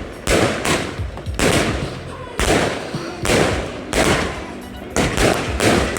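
A 72-shot, 500-gram consumer firework cake firing in sequence: loud aerial shell bursts follow one another about every half second to a second, some coming in quick pairs, each booming and then fading.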